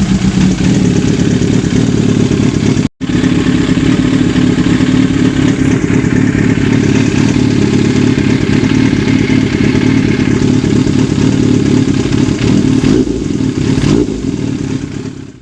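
Freshly rebuilt Yamaha FZ750's inline-four engine running steadily. The sound drops out for an instant about three seconds in and fades away at the very end.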